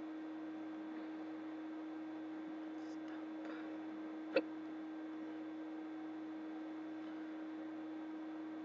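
A single short, sharp hiccup about halfway through, one of a persistent bout of hiccups, over a steady electrical hum.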